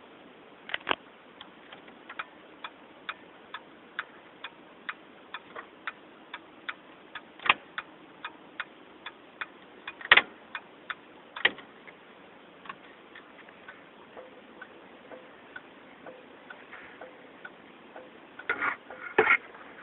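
Turn signal flasher of a 1991 Ford F-350 clicking steadily about twice a second: the new turn signal switch is working. The clicks grow fainter about two-thirds of the way through, and a few louder clunks, including a cluster near the end, are the signal lever being worked.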